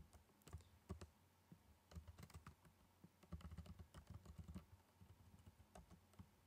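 Faint typing on a computer keyboard: irregular keystrokes in short bursts with brief pauses between them.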